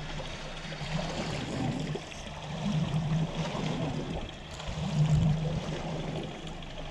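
Water lapping and trickling against a small boat's hull, with a low hum underneath that swells louder a few times.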